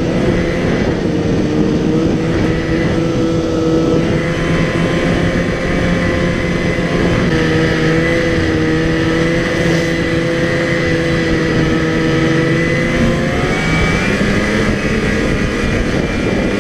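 A 2004 Polaris Pro X 550 snowmobile's two-stroke twin running steadily at trail speed through an aftermarket Snow Stuff exhaust can, over a rushing noise. The engine note changes pitch about thirteen seconds in.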